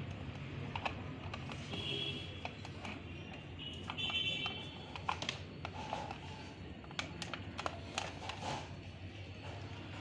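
Scattered light clicks and taps of hands fitting a calling bell's pin into its hole and working the wiring, over a low steady hum. A couple of short high chirps sound about two and four seconds in.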